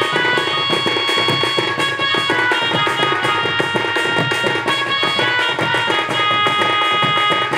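Live Sambalpuri folk ensemble: barrel drums (dhol) beaten in a fast, dense rhythm, with a high melody of held notes over them.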